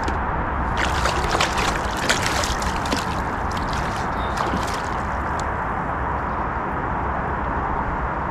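Water splashing and sloshing from about a second in for several seconds, then dying away to a steady background rush.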